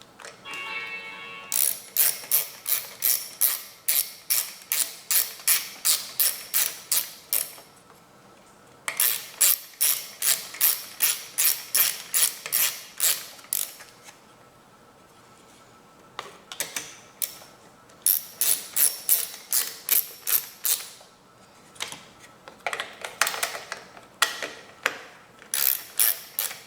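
Ratchet wrench clicking in runs of about two to three clicks a second, stopping and starting several times, as small aluminum bolts are tightened. A brief squeak comes about half a second in.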